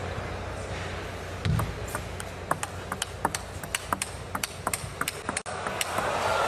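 Table tennis rally: the ball clicking off bats and table in a quick, irregular run of sharp ticks, with a dull thump at the start of the point. Arena crowd noise swells near the end as the rally finishes.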